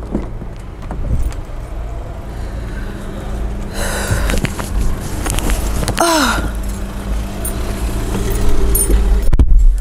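Car engine idling, a steady low hum. About six seconds in comes a short vocal exclamation that falls in pitch.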